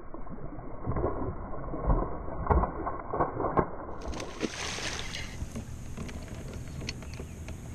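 Hooked largemouth bass thrashing at the surface in the grass: a run of sharp thumps and slaps, then a noisy burst of splashing about four to five seconds in, settling into steady water noise as the fish is fought on the rod.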